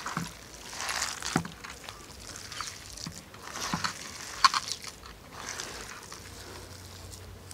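A hand mixing a stiff, wet batter of sweet corn kernels and gram flour in a clay pot, in irregular bursts with a few sharp clicks, quieter near the end.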